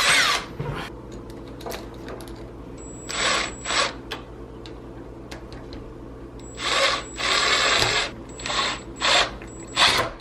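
Power drill running in about five short bursts, one of them longer, about a second and a half, in the middle, with a thin high whine from the motor.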